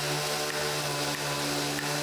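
A woodworking power tool running steadily, a constant motor hum with a hiss of cutting over it and faint regular ticks.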